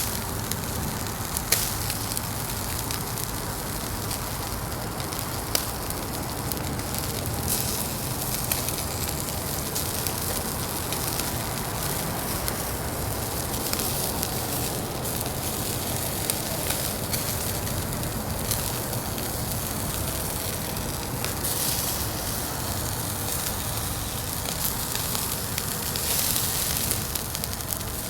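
Fire burning in a Uniflame Fire Grill fire pit: a steady hiss with occasional sharp crackles.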